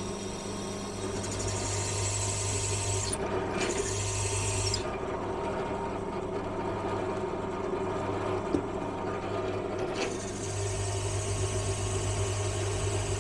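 Bench pillar drill running a hole saw that cuts through a bracing plate: a steady motor hum under the rasping grind of the saw teeth. The cutting noise eases for a few seconds in the middle and then picks up again.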